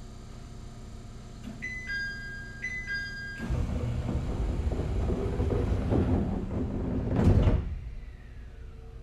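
Passenger doors of an ET127-series train closing. A two-note door chime, higher then lower, sounds twice, then the doors slide shut with about four seconds of loud rushing noise that ends in a thump.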